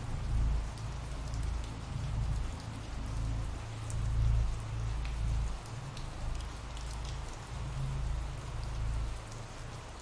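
Ambient rain sound effect: steady rain pattering, with a low, uneven rumble underneath.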